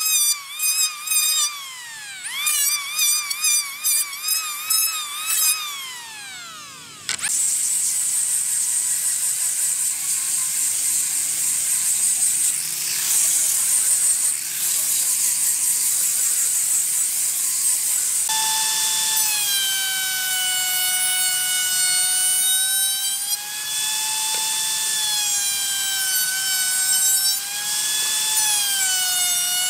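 Electric hand planer running in quick passes over a board, its whine dipping with each cut and recovering, then spinning down about seven seconds in. An angle grinder with a sanding disc then starts suddenly and runs with a steady high whine. From about eighteen seconds a circular saw in a saw table runs, its pitch sagging and recovering as it cuts plywood.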